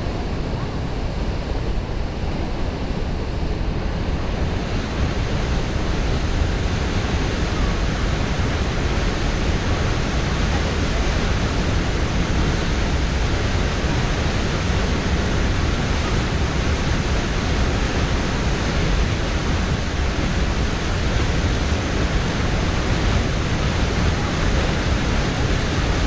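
Huka Falls on the Waikato River: a large volume of white water rushing out of a narrow volcanic rock ravine and over the falls. A steady, loud rush of water.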